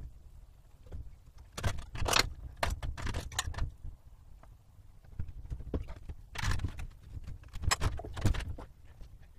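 Footsteps on a bus floor and irregular metallic clanks and rattles from hand work around a generator on its mounting frame. They come in several clusters of a few knocks each, with quieter stretches between.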